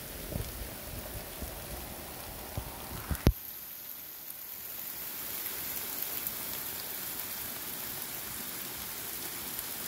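Steady rain hissing on grass, leaves and rock. A low rumble and a few knocks come in the first three seconds, ending in one sharp knock, after which only the hiss remains.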